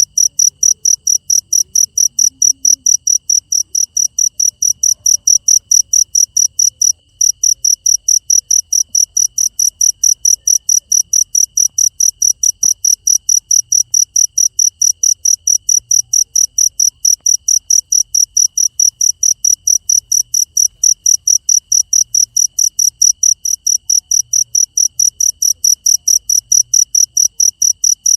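Cricket chirping in a steady, even rhythm of high-pitched pulses, about three a second, with a brief break about seven seconds in.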